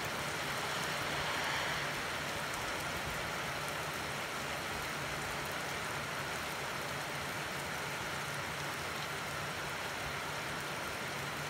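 Steady rain falling, an even hiss of rain on the road, roofs and lawn, with a faint low hum underneath.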